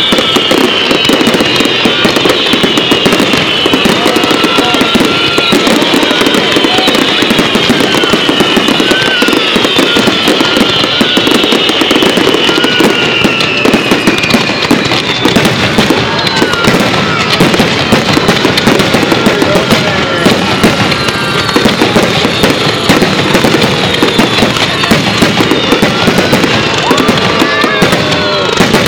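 A dense barrage of fireworks: a loud, continuous crackle of many small pops from glittering crackle shells bursting together. Falling whistling tones repeat over about the first half.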